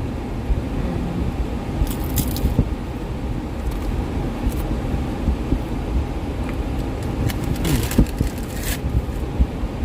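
Steady low rumble of a car idling, heard from inside the cabin, with brief clicks and rustles of handling about two seconds in and again near the end.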